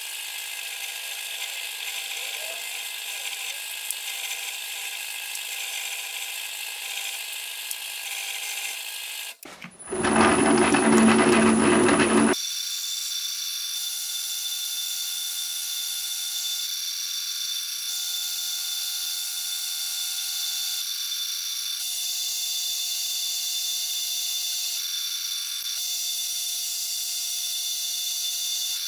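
Optimum benchtop metal lathe running and cutting steel, a steady machine whine with cutting noise. About ten seconds in, a louder, harsher stretch lasts a couple of seconds.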